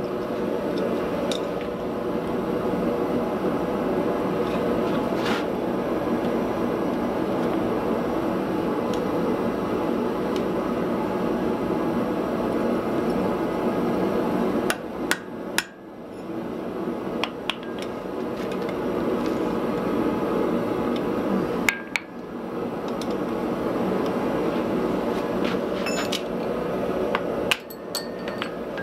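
Hammer blows on glowing wrought iron set on a steel anvil: a few sharp strikes several seconds apart, some with a short metallic ring. They sound over a loud steady rushing noise that runs throughout.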